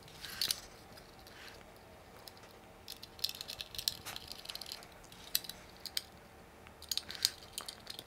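Faint scattered clicks and light metallic ticks of small screws and a screwdriver as a 2.5-inch SSD is screwed into a laptop's drive tray, with a cluster about three seconds in and several more near the end.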